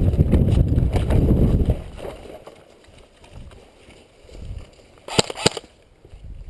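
A loud low rumble for about two seconds, then quiet, then near the end three quick sharp snaps of airsoft gunfire.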